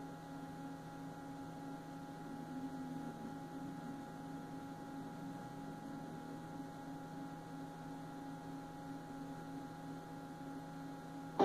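Faint, steady electrical hum made of several fixed tones. This is dead air on a network radio stream, the gap between one program's close and the next program's intro.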